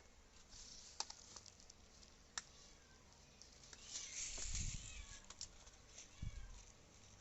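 A cat, faint and high-pitched like a kitten, meowing several times in short calls, with a rustle of handling about four seconds in and a few small clicks.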